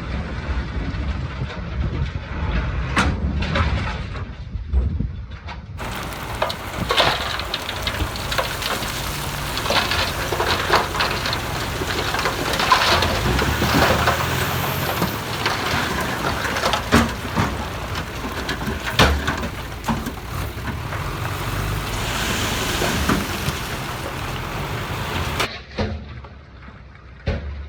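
Heavy earthmoving machinery running with a low rumble. About six seconds in, a dense crackling, rattling noise full of sharp clicks takes over for some twenty seconds, then stops abruptly near the end.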